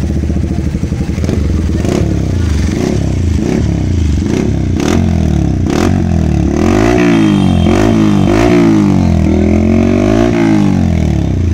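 Yamaha R15 V4's single-cylinder engine running through an aftermarket slip-on muffler held in place by hand for a sound test. It idles with short blips, then from about halfway it is revved up and let fall about five times in a row.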